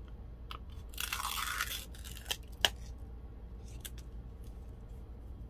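Foil seal peeled off the mouth of a plastic glitter jar: a short crinkling rustle about a second in, followed by a few light clicks as the jar and scraps are handled.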